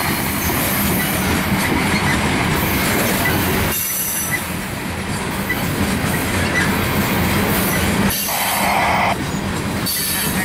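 Loaded coal gondolas of a unit freight train rolling past, with steady wheel-on-rail noise and some wheel squeal.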